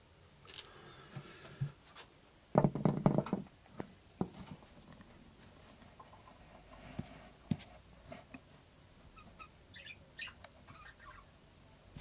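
Budgies giving short, high chirps, with a loud burst of knocking and rustling about two and a half seconds in and scattered clicks from handling in and around a nest box.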